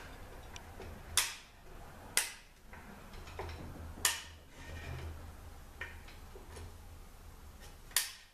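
Sharp metallic clicks and taps as hand tools work at the snap ring holding the low sprag in an Aisin AW450-43LE automatic transmission. Four louder clicks come at uneven intervals, with fainter ticks between them, over a low steady hum.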